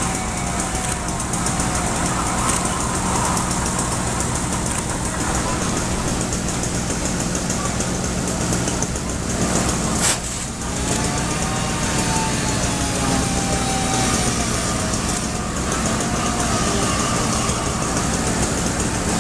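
Fire trucks' engines running steadily at the fireground, a constant low hum with a hiss over it; a short break about halfway through.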